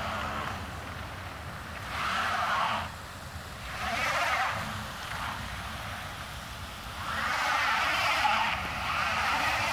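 Cars driving past one after another on a road glazed with freezing rain, their tyre noise on the ice and slush swelling and fading as each goes by. There are separate passes a couple of seconds apart, then several close together near the end.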